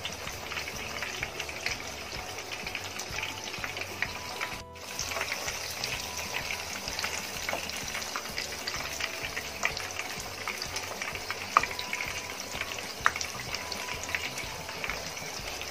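Two breadcrumb-coated chicken katsu cutlets frying in hot oil in a pan: a steady sizzle dotted with many small crackles and pops.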